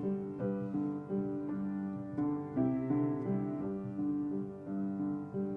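Soft keyboard music: slow, sustained chords held for about a second each before moving to the next.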